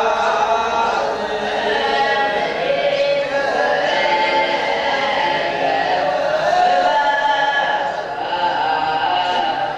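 A group of voices singing a chant-like song together, several pitched lines bending up and down at once.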